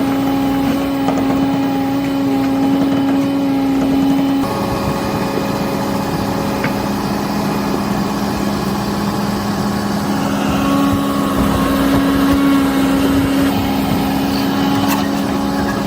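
Menzi Muck M535 walking excavator's engine running under load, a steady droning tone that shifts in pitch a few times as the machine works.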